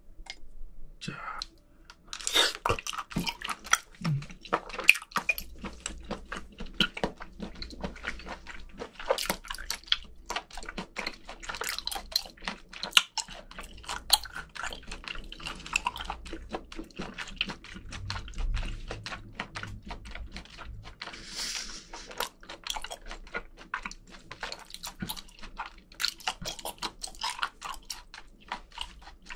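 Close-miked chewing of live octopus (sannakji), chewed slowly and thoroughly: a long run of wet smacks and small clicks from the mouth.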